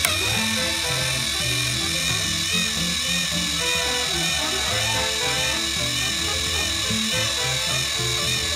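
Background music over the steady whir of a battery-powered TrackMaster toy train engine's electric motor running along plastic track.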